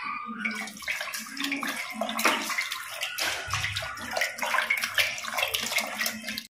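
Raw mutton pieces being mixed by hand in water inside an aluminium pressure cooker, with irregular wet splashing and squelching.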